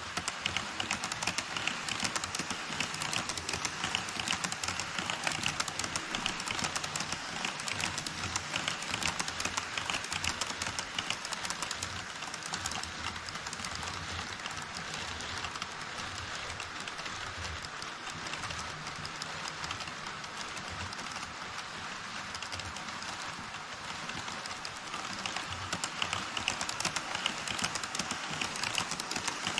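HO scale model train wheels running over Kato Unitrack across a model truss bridge: a steady, rapid clicking clatter with a light rumble. It grows louder near the end as a model E5 series Shinkansen passes.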